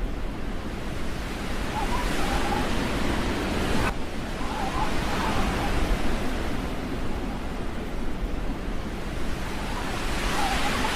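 Steady rushing wind noise, with a brief click about four seconds in.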